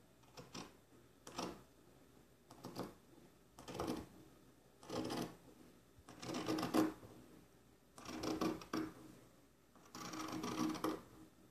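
Scissors snipping through the knit fabric of a pair of boxer briefs: a series of about eight cuts, roughly one every second and a half, the later cuts drawn out longer.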